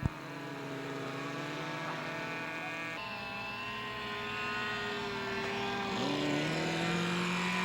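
Model Super Cub floatplane's O.S. Pegasus four-cylinder flat four-stroke engine running steadily in flight, its pitch shifting a few times as it throttles and passes.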